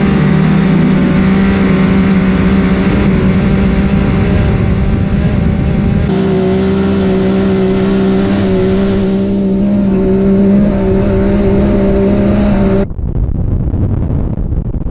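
Can-Am Maverick X3 Turbo's turbocharged three-cylinder engine running hard under full throttle, accelerating uphill in sand, its pitch holding steady. The sound changes abruptly about six seconds in. Near the end it gives way to wind rushing over the microphone.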